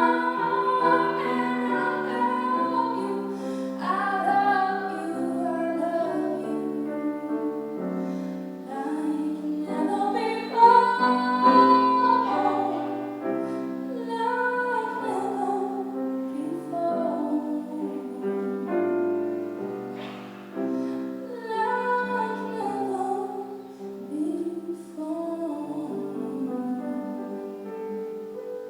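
A woman singing a slow song with piano accompaniment, her held notes wavering slightly over sustained piano chords; the music dies away at the end.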